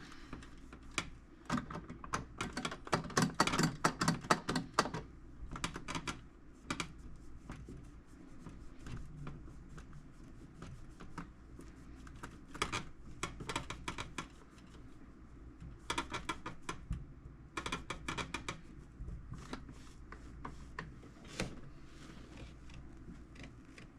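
Microfiber cloth rubbed back and forth into the crevices of a steel tool box, heard as bursts of quick, scratchy clicking strokes with pauses between them.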